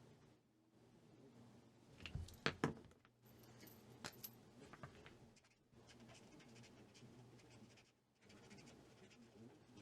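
Mostly near silence, with a short cluster of sharp clicks and rattles about two seconds in and a few faint ticks after: felt-tip markers being handled.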